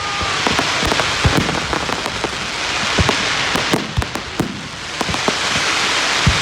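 Fireworks going off: a dense crackling hiss that swells and fades, with scattered sharp bangs throughout.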